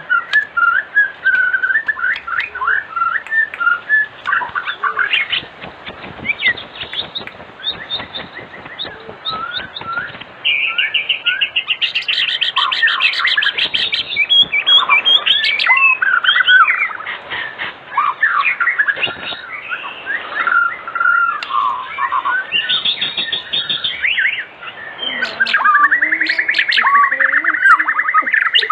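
White-rumped shama (murai batu) singing a rapid, varied song of whistled phrases and chattering trills, the energetic 'gacor' song used as a lure to get other shamas to answer. A dense fast trill runs through the middle, and another rapid trill starts near the end.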